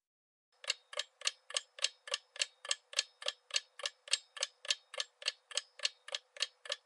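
Clock-ticking countdown sound effect of a quiz answer timer: short, evenly spaced ticks, about three to four a second, starting about half a second in.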